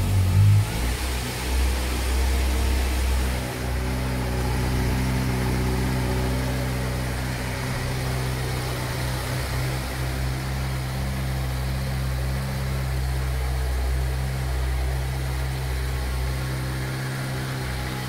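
2022 Kawasaki Versys 1000's inline-four engine idling just after a cold start following four and a half months of storage. It surges briefly in the first half second, then settles into a steady idle.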